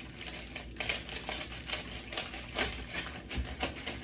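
A knife cutting through a butcher-paper-wrapped sandwich, the paper crinkling and crackling in quick, irregular ticks.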